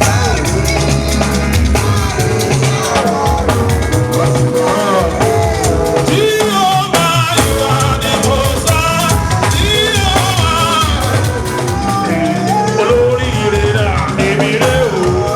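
Upbeat church gospel music with a drum kit, other instruments and singing voices.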